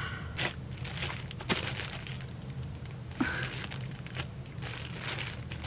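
Packaging crinkling and rustling as the award is handled and unwrapped, with a few light clicks scattered through and a denser crinkle near the end.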